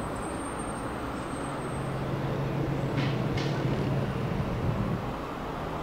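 City traffic noise: a steady rush of passing cars, with a heavier vehicle's low engine drone swelling through the middle and two brief high sounds close together about halfway through.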